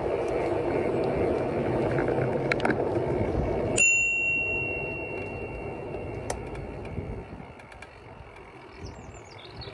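Bicycle bell rung once about four seconds in, a single high ding that rings on for a couple of seconds as it fades, over a low rumble of riding and wind noise that dies down after the ring.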